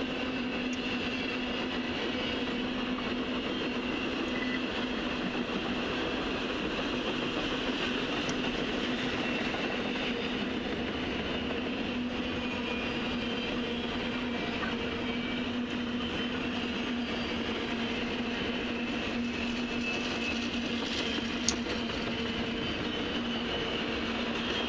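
Double-stack container freight train rolling past, a steady rumble of wheels on rail with a steady hum over it. One sharp click near the end.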